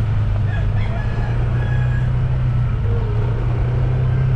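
Steady drone of a vehicle's engine on the move, with a rooster crowing over it about half a second in.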